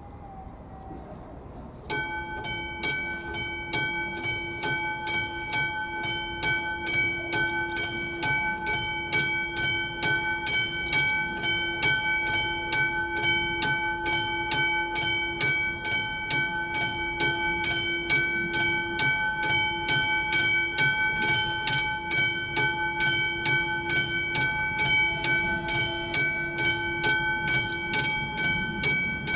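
Mechanical level-crossing warning bell on an AŽD 71 crossing signal starts ringing about two seconds in, striking in rapid, even strokes with a steady ringing tone: the crossing has activated for an approaching train.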